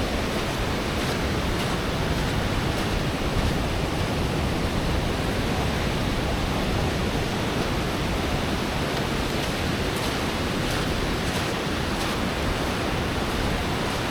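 Ocean surf washing onto a sandy beach, a steady rush of breaking waves.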